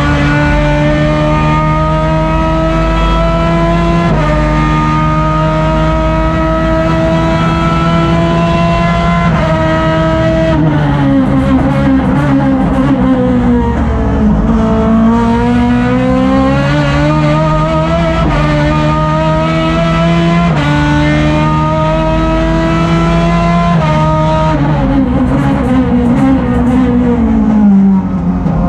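Chevrolet STC2000 touring car's engine at racing speed, heard from inside the cockpit. Its pitch climbs steadily in each gear with sharp drops at upshifts about 4 and 9 seconds in, then falls as the car brakes and changes down, climbs again through two more upshifts, and falls once more under braking near the end.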